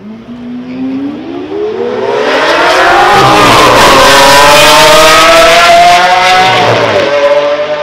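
Two Lamborghini Aventadors' V12 engines at full throttle off the drag-strip launch, the pitch climbing hard, dropping at an upshift about four seconds in, climbing again, then dropping at a second upshift near the end as the cars pull away.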